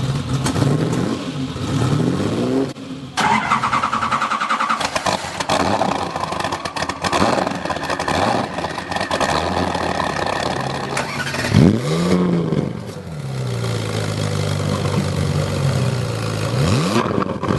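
Car engines with loud exhausts, idling and being revved; each rev is a quick rise and fall in pitch. About three seconds in, the sound changes to a denser, rougher engine note.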